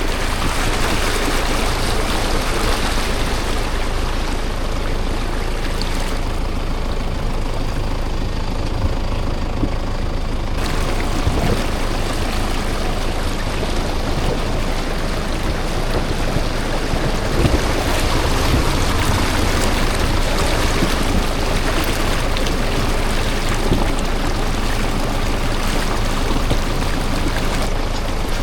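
A vehicle driving, with steady engine and road noise. The sound changes abruptly a few times, about six and ten seconds in and again near the end.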